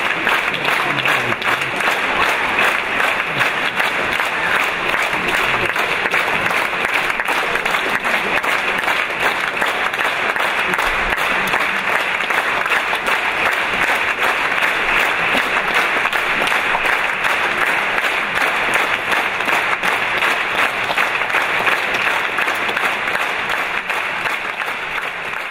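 Audience applauding steadily: dense, continuous clapping.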